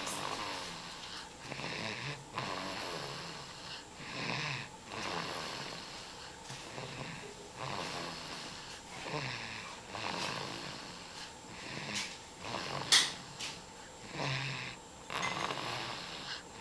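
Snoring: a slow run of rasping snores, one on each breath every one to two seconds, with a single sharp click about three-quarters of the way through.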